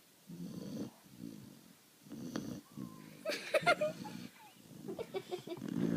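A sleeping pet snoring, a few separate snoring breaths a second or so apart, getting louder and wheezier in the second half.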